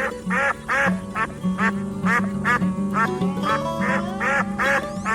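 An animal giving a fast series of short, quack-like calls, about two a second, over background music.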